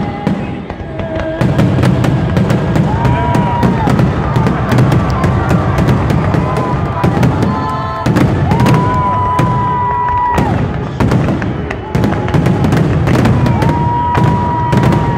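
Fireworks display: aerial shells bursting in quick succession, with dense crackling over a continuous low rumble. A steady high whistle-like tone is held three times, for a second or two each.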